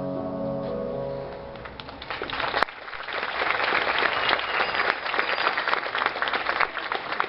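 Music ending on sustained notes that fade over the first couple of seconds, then an audience applauding steadily.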